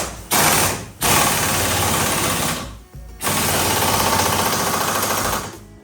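Pneumatic air tool running with a rapid hammering rattle, in three bursts: a short one, then one of about a second and a half, then one of about two seconds.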